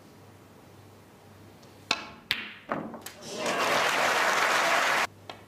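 Snooker balls clicking: the cue tip strikes the cue ball about two seconds in, followed by a few sharp ball and cushion knocks. Then about a second and a half of audience applause that cuts off suddenly, and one more light click near the end.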